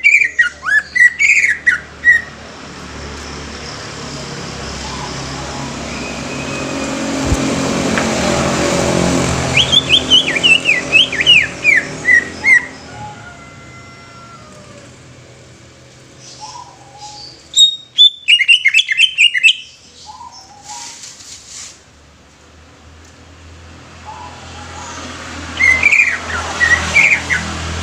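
Cucak ijo (leafbird) singing in four short bursts of quick, sharp, arching whistled notes, one about every eight seconds. Between the first two bursts a rushing noise swells and fades.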